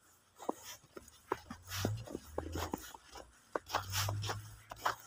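Footsteps crunching in fresh snow, an irregular run of short crunches, with a low rumble coming in twice underneath.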